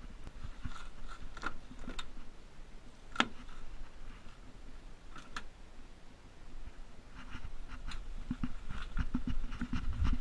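Footsteps in snow and the door of a snow-covered truck being unlatched and opened, with a sharp click about three seconds in. Then scraping and rustling as someone climbs into the cab.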